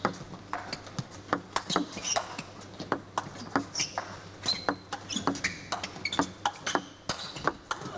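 Table tennis ball ticking sharply off rackets and the table in a long rally, an irregular run of about two or three hits a second. Short squeaks of shoes on the court floor come in between the hits.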